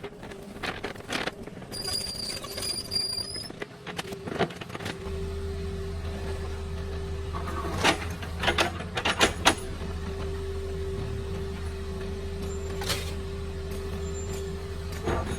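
Excavator engine starts running steadily about five seconds in, a low even hum, with several loud sharp knocks a few seconds later; scattered clicks and knocks come before the engine.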